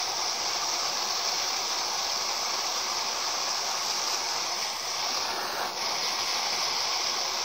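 Gas torch flame hissing steadily while it is played onto the burning core of a halved apple.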